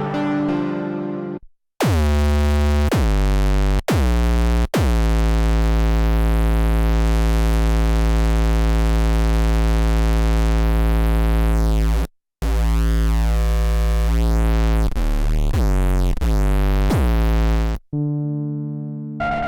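Arturia MiniFreak polyphonic synthesizer playing a deep, bass-heavy sustained patch whose filter sweeps up and down. It holds long notes for several seconds at a time and cuts off briefly twice, then plays a short higher passage near the end.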